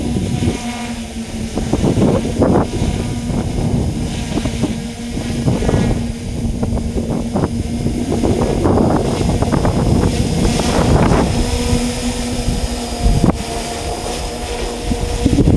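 Large multirotor drone hovering, its electric motors and propellers giving a steady two-pitched hum. Gusts of wind buffet the microphone and are louder than the hum at times.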